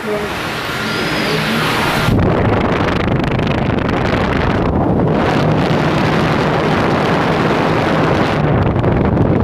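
Arno electric desk fan running, its air stream buffeting the microphone with a loud, steady rush over a low motor hum. The rush builds over the first two seconds, then holds.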